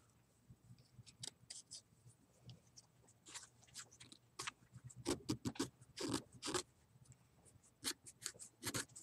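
Knife blade shaving a wooden chopstick while carving a crochet hook: a series of short, irregular scraping strokes, the louder ones about five to six and a half seconds in and near the end.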